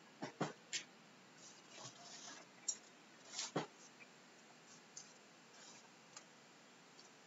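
Scattered clicks of a computer mouse and keyboard: three quick clicks near the start, two louder ones around the middle, then fainter single clicks.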